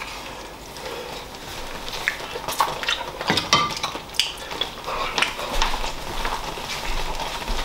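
A spoon stirring a thick stew in an enamelled cast-iron pot, with scattered light clinks and knocks of kitchenware.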